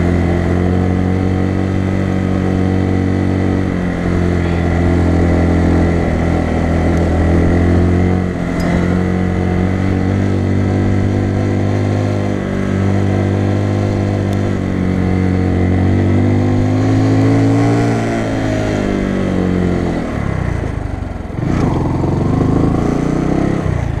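Bajaj Boxer BM 150 single-cylinder four-stroke motorcycle engine running under way on a rough dirt track. Its pitch rises and dips with the throttle, drops off about twenty seconds in, and picks up again near the end.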